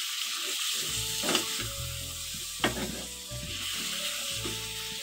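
Fish fat and onions sizzling in hot oil in a metal karahi while being stirred with a spatula. The spatula knocks sharply against the pan twice, about a second and a half in and again near the three-second mark.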